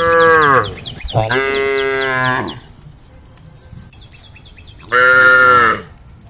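Cows mooing: three loud calls, each falling in pitch, the second the longest. Rapid high chirps repeat steadily behind them.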